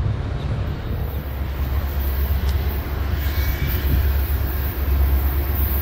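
Diesel locomotive of an approaching Union Pacific freight train, a steady low engine rumble.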